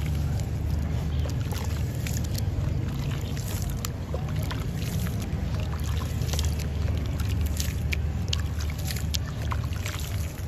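Hands sloshing and scooping gritty sand-cement water in a plastic tub, with wet slurry pouring and dripping back in as many small splashes and clicks. A steady low rumble lies under it.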